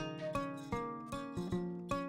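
Background music: a melody of quickly fading plucked notes, several a second.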